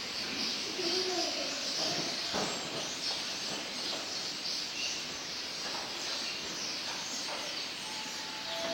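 Massed chatter of a large flock of starlings gathering to roost: a dense, continuous twittering made of countless overlapping calls.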